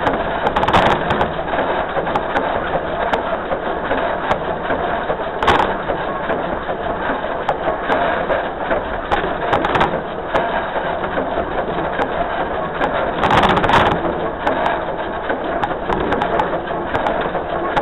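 Narrow-gauge steam train No. 192 running along the track: a steady, loud rumble and clatter of the locomotive and its wheels on the rails, with a few short louder bursts, near the start, about five seconds in and near the end.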